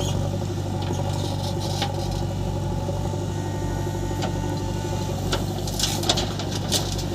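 Heavy diesel engine running steadily, with a few sharp metallic knocks, most of them close together about six seconds in.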